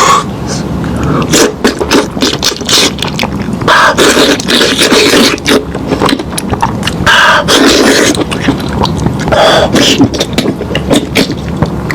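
Scraping and clicking of food and utensils being handled, with a few short murmurs of voice.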